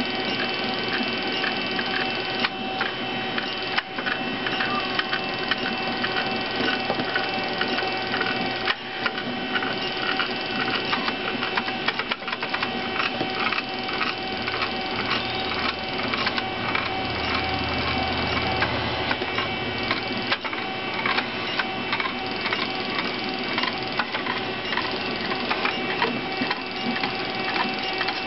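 Stepper motors of a homemade CNC coil winder turning the spool spindle and driving the traverse table, winding string onto the spool. They give a steady whine of several tones with rapid ticking, and a low hum swells briefly about two-thirds of the way through.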